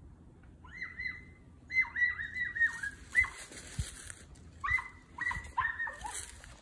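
Miniature dachshunds yapping in three quick bursts of short, high yips. Dry brush crackles in the second half.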